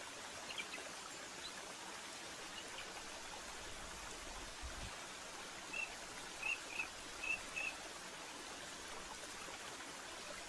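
Steady rush of flowing river water, with a quick run of five short, high bird chirps about six to eight seconds in and a few fainter chirps near the start.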